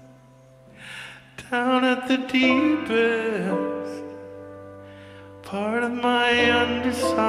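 Slow, gentle song: a man sings long, wavering held notes in two phrases, the first about a second and a half in and the second about five and a half seconds in, over sustained guitar and piano.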